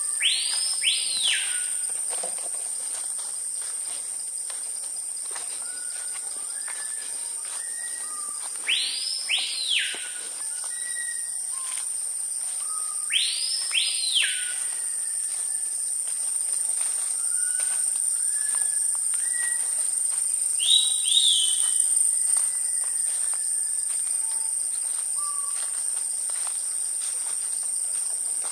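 Rainforest insects and birds: a steady high-pitched insect drone, with a bird giving a loud call that sweeps up and back down, in pairs, three times in the first fifteen seconds, a shorter call about twenty seconds in, and softer whistled notes scattered between.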